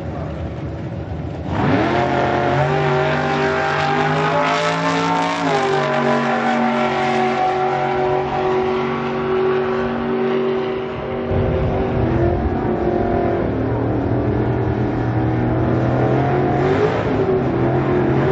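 Drag-racing car's engine at full throttle, starting suddenly a second and a half in as the car launches, its pitch rising and stepping down at gear changes, then held steady as it runs down the strip. About eleven seconds in, another car's engine starts up loud and revs up near the end, during a burnout with tire smoke.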